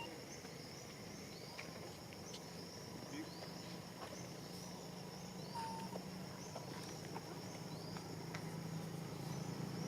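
Outdoor ambience: a steady, high-pitched insect drone with repeated short chirps, a few brief whistle-like animal calls, and a low steady hum underneath.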